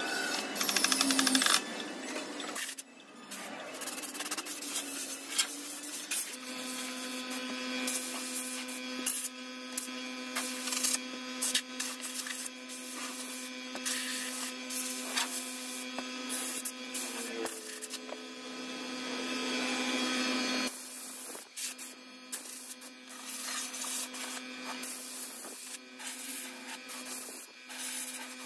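Hand work on a wooden shadow box frame: scattered clicks, taps and rubbing as pieces are handled and fastened inside it, over a steady hum that cuts out briefly about two thirds of the way through.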